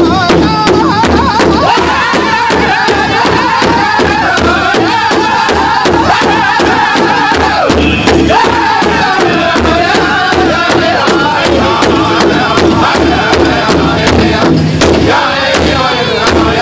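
Powwow drum group singing in high voices together over a large hide-headed drum that all the singers strike in unison with drumsticks, in a steady even beat. The voices break off briefly a little before halfway and come back in while the drumming keeps going.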